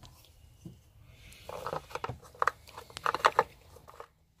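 Plastic oil filler cap being fitted back onto the engine's filler neck and twisted shut after fresh oil is poured in: a cluster of short clicks and scrapes, mostly between about one and a half and three and a half seconds in.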